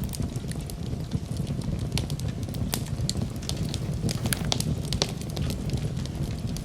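Wood campfire burning, with frequent sharp crackles and pops of the burning wood over a steady low rumble of the flames.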